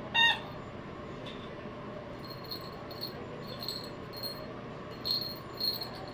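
A Yorkshire terrier puppy gives one short, high yelp; then the small bell inside a plastic lattice toy ball jingles in soft, irregular taps as the puppies nudge it around.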